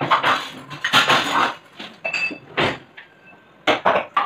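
Steel kitchen utensils and pans clattering and clinking as they are handled and put away in a dish-rack drawer: a quick series of knocks, one with a brief metallic ring about two seconds in.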